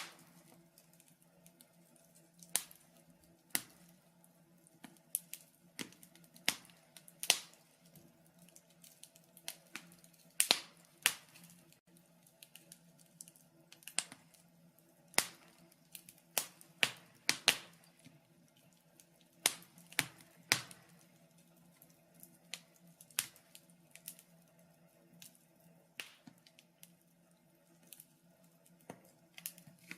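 Fire crackling in a fireplace: irregular sharp pops, some loud, over a steady low hum.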